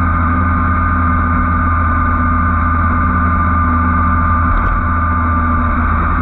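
Motorcycle engine running at a steady cruising speed with wind noise, as a continuous loud drone with an unchanging pitch.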